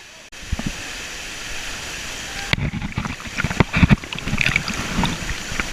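Rushing river water, with irregular knocks and thumps close to the microphone from about two and a half seconds in.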